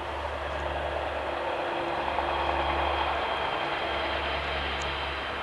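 Large, hot campfire burning with a steady rushing roar that swells slightly partway through.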